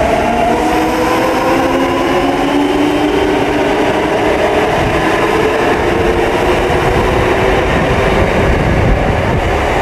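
Kintetsu electric train running past along an underground station platform: a steady rumble of wheels and car bodies, with the motor whine falling in pitch over the first few seconds.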